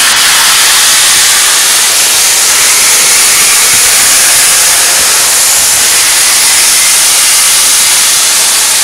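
Union Pacific 4014 'Big Boy' 4-8-8-4 steam locomotive venting steam from around its cylinders: a loud, steady hiss.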